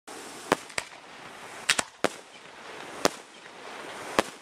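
Fireworks going off at night: about seven sharp bangs at irregular intervals, two of them in quick succession, over a steady hiss.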